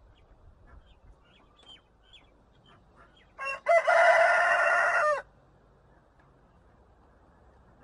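Rooster crowing once, about three and a half seconds in: a short opening note, then one long cock-a-doodle-doo of about a second and a half that ends with a slight drop in pitch.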